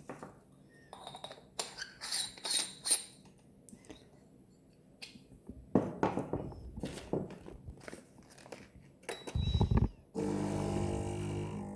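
Objects being handled: a series of knocks, clicks and crinkling, then a steady pitched hum for about two seconds near the end.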